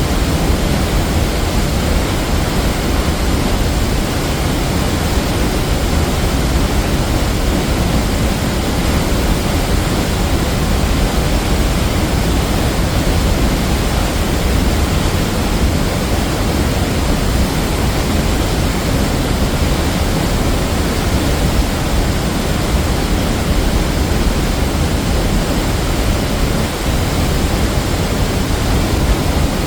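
A waterfall's loud, steady rush of falling water, heaviest in the low end, picked up on a phone's built-in microphone.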